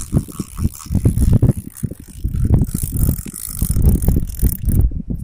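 Fishing reel being cranked to wind in the line, a ratcheting mechanical clicking, over heavy wind buffeting on the microphone.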